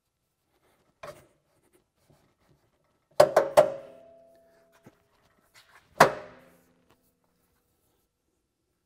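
Metal mounting bracket clanking onto the John Deere Gator's metal frame rail as it is set into place: three quick ringing clanks a little past three seconds in, then one more about six seconds in.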